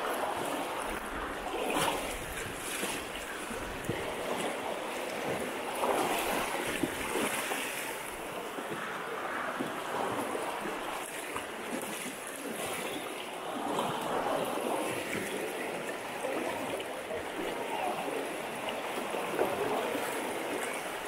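Shallow river current rushing over rocks, with the splashing of people wading knee-deep through it.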